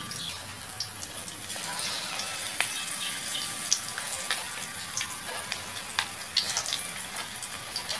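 Chopped banana blossom frying in hot cooking oil in a wok: a steady sizzle with scattered sharp crackles and pops throughout.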